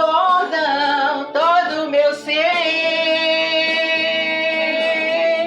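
A woman singing a worship song with instrumental accompaniment: a melismatic phrase that settles about two and a half seconds in on one long held note.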